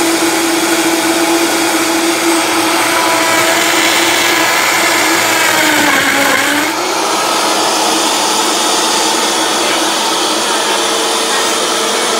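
Vitamix 5200 blender running on high, its motor whining steadily as it blends a smoothie in the pitcher. About six seconds in, the motor's pitch dips briefly and comes back up.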